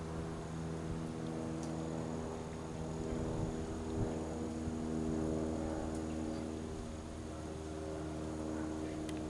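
Steady low hum of a running engine, even and unchanging, with a few faint ticks.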